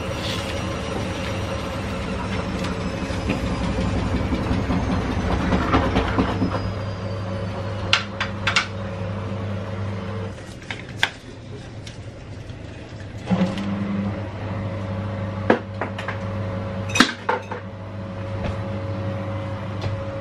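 Steady low machine hum, stopping for about three seconds midway and then starting again. Over it come scattered clicks and knocks of items being handled on a kitchen counter.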